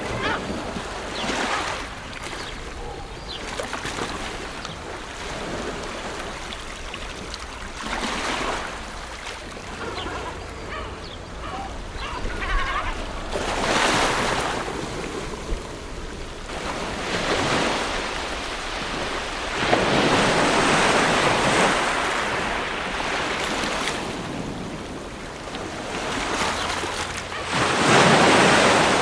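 Ocean waves washing in, in surges every few seconds, the biggest about two-thirds of the way through and near the end.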